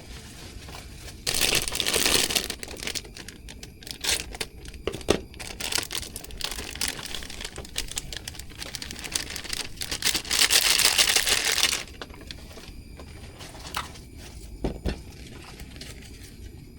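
Crinkling and rustling close to the microphone, with many small crackles, louder in two stretches: about a second in, and again around ten seconds in.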